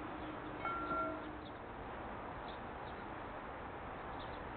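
Steady outdoor background noise on an open ballfield, with a faint, brief chime-like tone about a second in.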